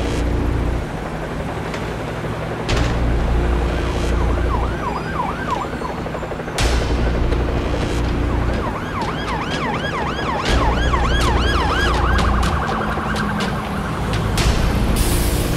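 Wailing emergency siren sound effect, its pitch sweeping quickly up and down. It is heard briefly about four seconds in, then again for several seconds from about eight seconds in, over dramatic background music with a deep repeating bass and a few sharp hits.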